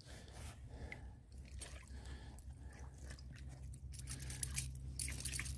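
Faint handling of a steel MB-750 foothold trap and its chain, small clicks and scrapes of metal, growing busier after about four seconds.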